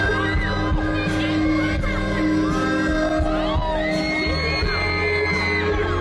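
Live band playing an instrumental passage of a slow pop ballad, with held keyboard notes and drums, while audience members whoop and shout over it.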